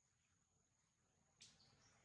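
Near silence: faint outdoor ambience with a steady, thin high tone and one short, sharp chirp about a second and a half in.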